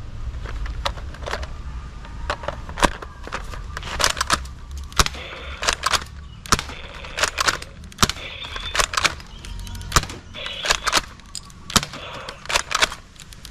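Toy foam-dart blaster, an M16-style model, being handled and fired: an irregular string of sharp clicks and snaps with short rattling stretches between them.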